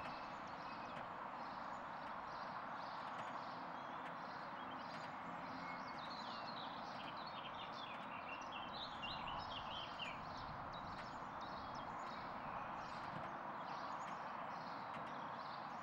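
Steady outdoor background hiss with a soft, regular clicking about twice a second; a bird twitters briefly about halfway through.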